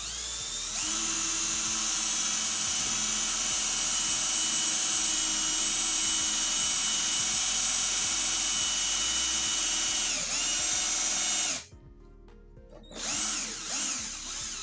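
Aquaracer cordless drill boring a hole into a block of wood. The motor spins up with a rising whine and runs steadily at speed for about ten seconds, sagging briefly in pitch before it stops. A second short run follows about a second later.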